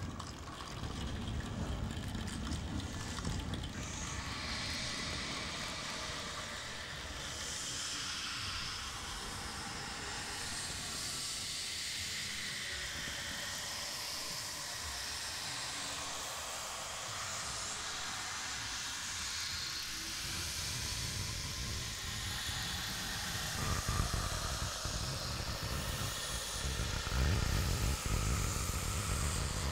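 Improvised noise performance: a drifting, hissing noise texture, with a low rumble underneath that is strongest near the start and again in the last few seconds.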